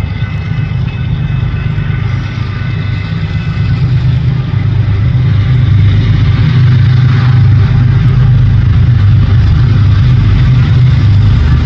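GE ES44 diesel locomotives approaching with a freight train, the engine sound low and steady, growing louder and reaching full level about six seconds in.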